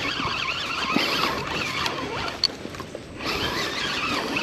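Fishing reel squealing and whirring as line goes out and is reeled in under the pull of a big hooked catfish. A sharp click sounds about two and a half seconds in.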